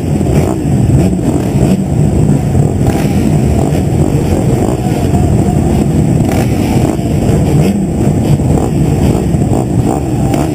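Several motocross bikes running together on the start line behind the starting gate, a loud, steady engine din heard close up from one rider's own bike.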